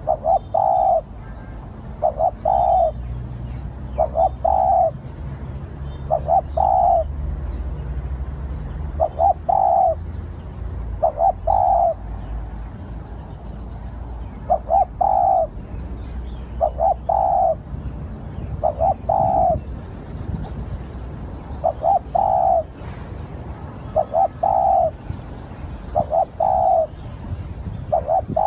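Spotted dove cooing its song over and over in short phrases of two or three coos, about one phrase every two seconds; this is the decoy call used to lure wild doves. A small bird chirps high and faint in the background.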